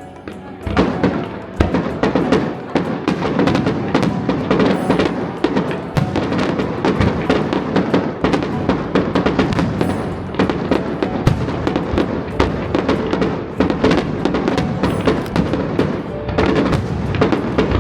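A rapid barrage of aerial fireworks, many overlapping bangs and crackles in quick succession, starting about a second in.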